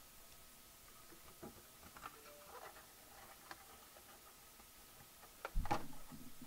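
Faint rustling and light taps of trading-card hobby boxes and foil card packs being handled and set out on a table, then a single louder thump near the end.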